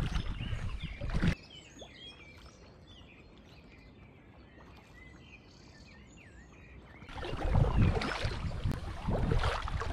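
Small songbirds chirping and twittering in woodland during a quieter stretch. Before and after it come loud rushes of wind on the microphone mixed with kayak paddling noise: one about a second in that cuts off suddenly, and one that comes back near the end.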